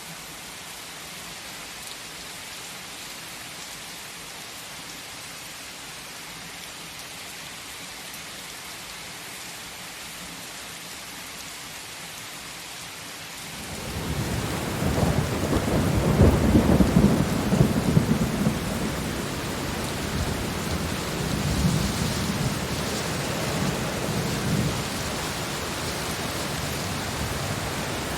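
Steady rain hissing, then about halfway through a long low roll of thunder swells in, loudest a few seconds after it starts. The rain runs heavier under it, and a second, weaker rumble follows later.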